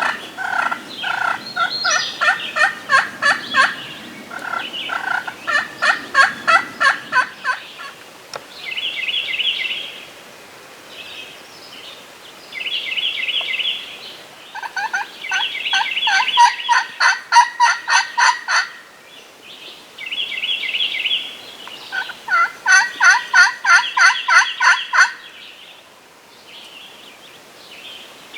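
Wild turkey gobbling loudly and close by, in four long rattling bouts. Short higher bird calls sound in the gaps between them.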